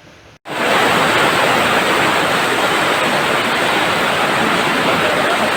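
Heavy summer downpour with rushing floodwater, a loud steady roar of water that starts abruptly about half a second in.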